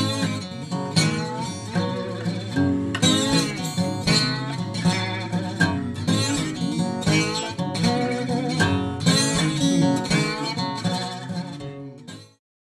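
Background music with plucked acoustic guitar: a steady run of notes that cuts off near the end.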